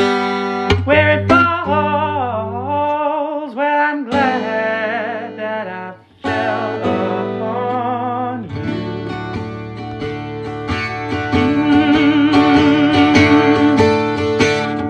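An original song played on acoustic guitar, with a sung melody wavering over it. The music drops out briefly about six seconds in, then comes back with fuller strumming and a steady bass.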